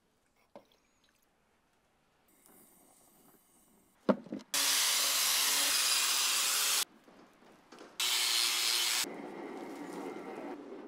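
Hand-held angle grinder grinding the rust off an old drill press part, in two runs of about two seconds and one second that start and stop sharply, with a sharp knock just before the first. After the second run a lower steady rushing noise carries on to the end.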